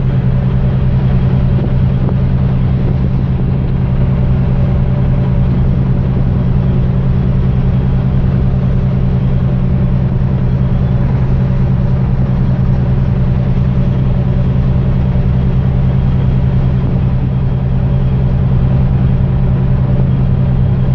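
Steady low drone of a container ship's engines and machinery heard on deck: a constant loud hum that does not change.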